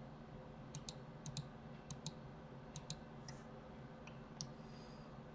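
Faint computer mouse clicks, about six, most in quick press-and-release pairs, over a low steady hum.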